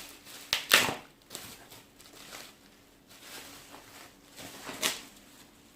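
Bubble wrap being unwrapped from packages: irregular plastic rustling and crackling, with the sharpest crackles just under a second in and again near the end.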